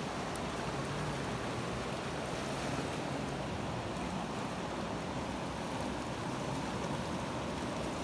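Fast-flowing river water rushing steadily.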